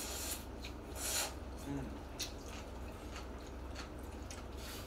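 Jjamppong noodles being slurped and chewed close to the microphone. There is a longer slurp about a second in, then scattered small wet mouth clicks.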